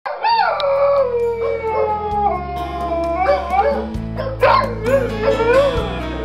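Dogs howling: one long howl sliding down in pitch over the first couple of seconds, then shorter wavering howls near the end. Background music with low held chords changing about every two seconds plays underneath.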